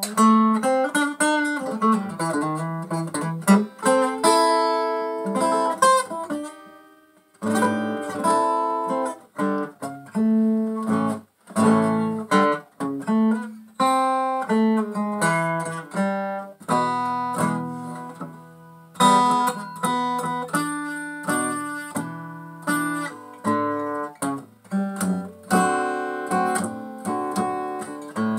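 Takamine EF360S TT steel-string acoustic guitar, its sides cracked, played solo in a blues, mixing picked single notes and strummed chords, with short breaks about seven and eleven seconds in.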